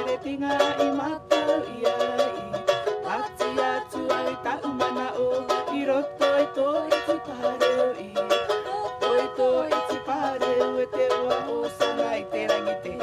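Ukulele strummed in a brisk, even rhythm, accompanying two women singing a song.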